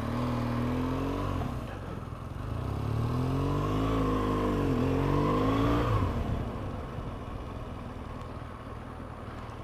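Motorcycle engine pulling away, its note climbing twice as the bike accelerates. After about six seconds the engine note drops back to a low, steady rumble.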